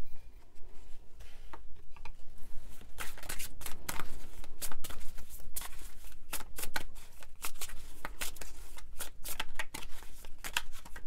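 Tarot cards being shuffled by hand: an irregular run of short card clicks and flicks, sparse at first and getting busier after a few seconds.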